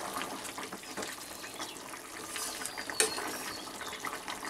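Potato curry bubbling at a simmer in a steel pot while a steel spatula stirs through it, with small clicks of the spatula and one sharper clink against the pot about three seconds in.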